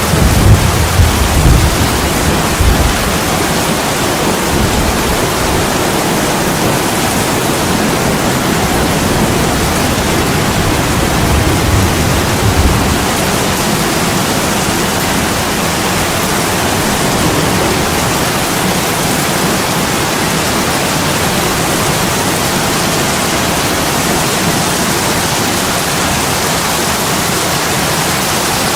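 Heavy rain pouring steadily on a window, a dense even hiss. Low rumbles rise over it in the first few seconds and again about twelve seconds in.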